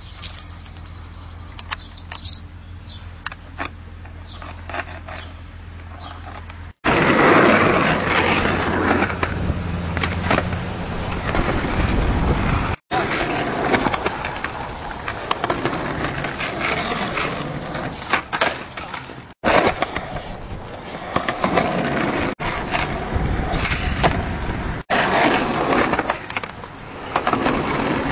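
Skateboard wheels rolling over concrete, with sharp clacks and knocks of the board hitting the ground during tricks, in several short stretches that cut off abruptly. The first several seconds are quieter: a low steady hum with a few light clicks.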